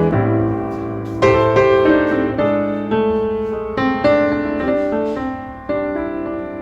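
Background music: solo piano playing slow chords, each struck and left to ring.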